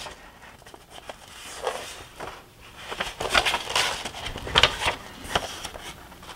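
Paper instruction sheets being leafed through and turned by hand, rustling in several short bursts.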